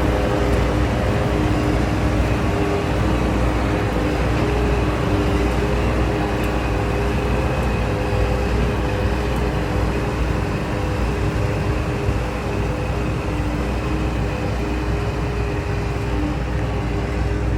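Preet combine harvester running steadily under way: a loud, even machine drone with a low rumble and a few steady humming tones on top.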